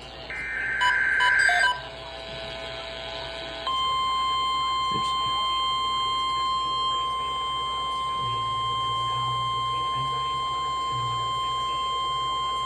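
NOAA Weather Radio alert: near the start, a short warbling burst of SAME digital header tones; then, from about four seconds in, the steady 1050 Hz warning alarm tone held for about nine seconds. The tone signals that an emergency alert message is about to be read.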